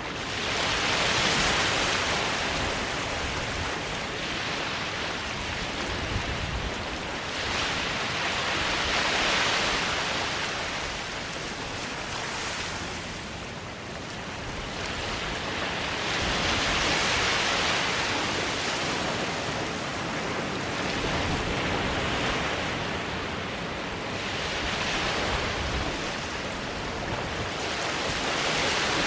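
Waves breaking and washing up a sandy beach, the surf swelling and fading about every seven to eight seconds.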